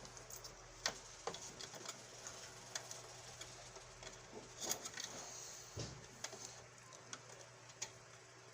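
Scattered light clicks and taps of small plastic vacuum-cleaner parts being handled on a workbench, irregular and a few seconds apart, over a faint steady hum.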